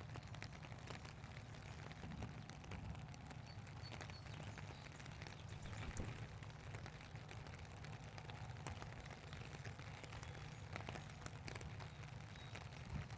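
Steady rain falling, with many small drop taps close by, over a low steady rumble.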